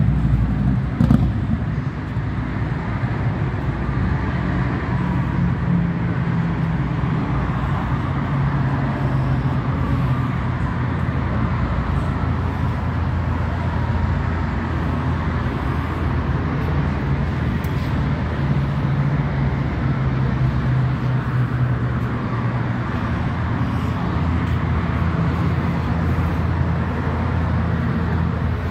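A vehicle engine idling steadily, a low rumble, with a short knock about a second in.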